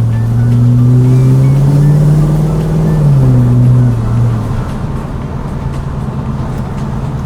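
LS V8 engine of a Holden VH Commodore accelerating under throttle, its note rising for about three seconds. The note then drops and holds, and eases back to a steady lower run about four and a half seconds in.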